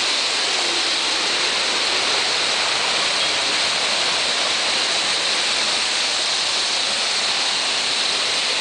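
Mountain waterfall: a steady, even rush of falling water.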